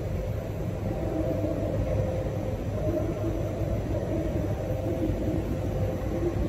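JR Hokkaido 733 series electric train standing at the platform, its onboard equipment giving a steady low rumble with a faint hum.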